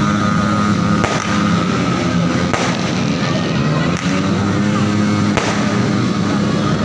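New Year's fireworks going off: a few sharp bangs a second or two apart over a dense, continuous din of more distant bursts.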